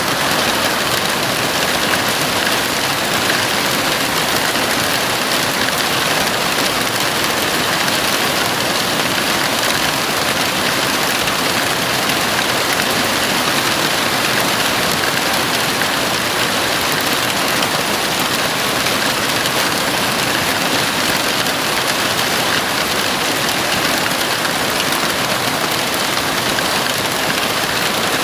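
Heavy rain falling steadily on a house roof, an even, unbroken hiss of rain.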